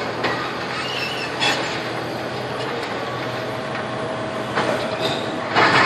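Liebherr tracked demolition excavator running, its grab tearing and crushing steel beams and corrugated sheet metal, with metal screeching and scraping. Loud crashes of metal come about one and a half seconds in and twice near the end.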